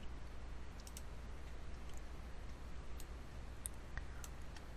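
A handful of scattered, faint clicks from a computer mouse being clicked and scrolled, over a low steady hum.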